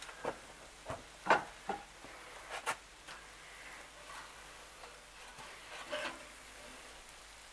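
Several short sharp clicks and knocks of a metal spatula against the grill grate, the loudest a little over a second in, then the spatula scraping along the grate about six seconds in as it slides under a baguette to lift it.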